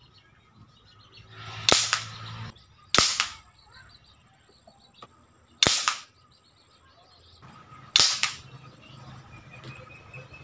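Homemade alcohol-fuelled PVC gun, built as a replica of an FX M3 air rifle, firing 8mm steel balls: four sharp shots one to three seconds apart, each with a brief ring-off.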